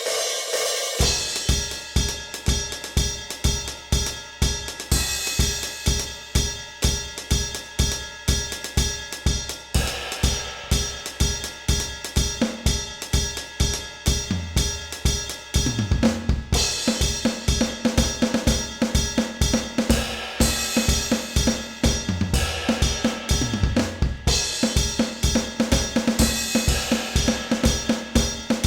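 Donner DED-200 electronic drum kit's mesh pads and cymbals played in a steady, driving beat of kick, snare, hi-hat and cymbals. The drum samples come straight out of the kit's sound module, with its built-in reverb and no added processing.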